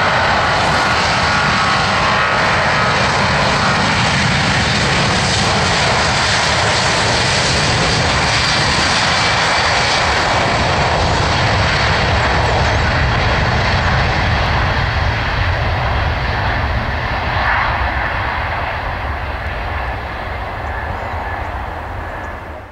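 Rolls-Royce Trent turbofans of a twin-engine Boeing 777 airliner running at takeoff thrust during the takeoff roll: a loud, steady jet roar that fades over the last several seconds as the aircraft draws away down the runway.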